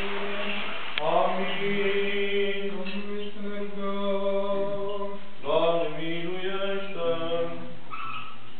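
Orthodox priest chanting the baptism prayers, a male voice holding long notes on a steady pitch, with new phrases beginning about a second in and again about halfway through.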